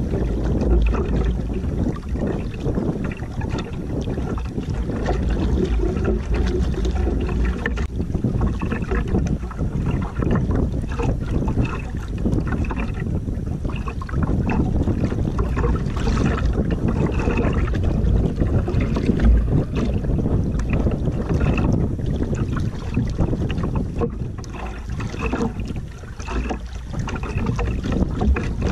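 Choppy sea water slapping and splashing against a small wooden outrigger canoe's hull, with wind buffeting the microphone.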